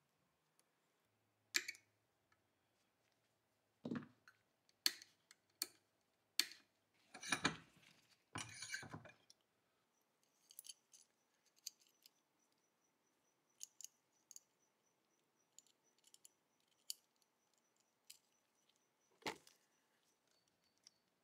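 Small steel parts of a Remington .22 pump-action rifle's trigger group clicking and clinking as they are handled and fitted together, with scattered light knocks and a brief stretch of scraping a third of the way in.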